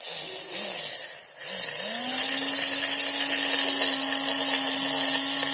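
Homemade mini hand drill's 550 DC motor, drill bit in its chuck, running briefly, then switched on again about a second and a half in, rising in pitch to a steady whine. It shakes a little because the motor is old.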